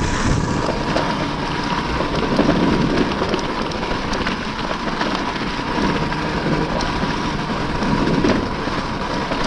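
Dirt bike ridden along a rough, stony trail: the engine runs under heavy wind rush on the camera microphone, swelling now and then.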